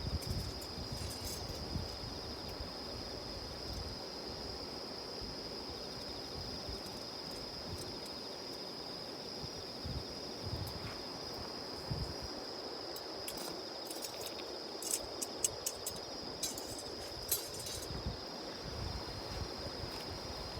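Insects chirring in one steady high-pitched note, with a campfire's burning wood crackling in sharp pops that come thicker in the second half.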